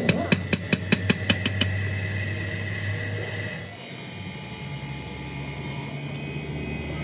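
A quick run of hammer strikes on metal, about five a second, stops a little over a second and a half in. A machine keeps running with a steady high whine, which drops and changes character about halfway through.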